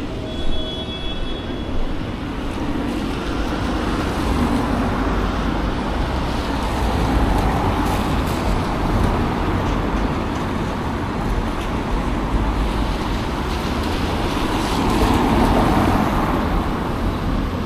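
Road traffic on a city street: a steady hiss of tyres on wet road, swelling twice as vehicles pass.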